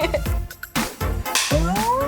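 Upbeat electronic background music with a steady drum beat, and a rising tone near the end.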